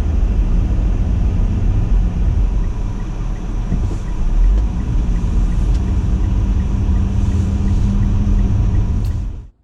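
Car driving on a road: a steady rumble of engine and tyres, heaviest in the deep lows, that cuts off abruptly near the end.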